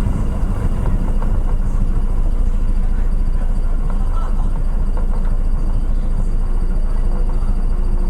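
Steady, loud low rumble aboard a Sakurajima car ferry under way: the ship's engine drone with a noisy wash over it.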